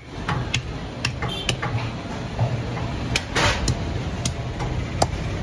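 Heavy butcher's cleaver chopping goat meat and bone on a wooden log chopping block: a string of sharp, irregular knocks, one with a short scrape, over a steady low hum.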